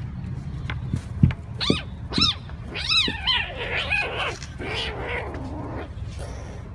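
Kittens meowing during play-fighting: a run of short rising-and-falling cries begins about a second and a half in and goes on for several seconds, some lower and drawn out. A steady low hum runs underneath, with a single thump just before the cries start.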